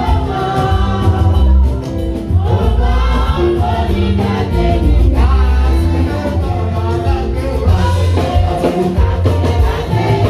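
Gospel music: singing voices over a band with a heavy bass line, playing throughout.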